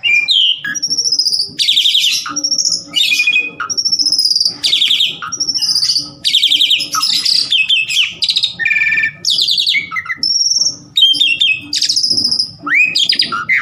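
Asian pied starling (jalak suren) in full song: a fast, nearly unbroken run of loud, harsh chattering phrases mixed with short whistles, with brief pauses between phrases.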